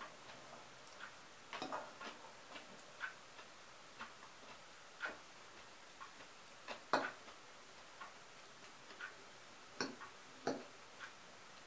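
A metal fork clinking against a ceramic bowl of salad as food is picked up, in irregular light clicks, the sharpest about seven seconds in.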